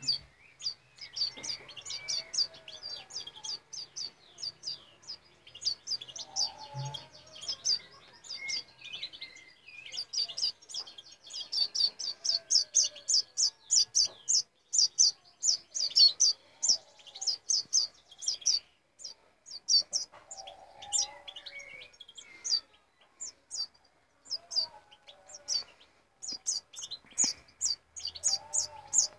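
Goldfinch fledgling begging for food while being hand-fed: rapid runs of short, high chirps, several a second, densest around the middle. Fainter, lower wavering calls sound behind them.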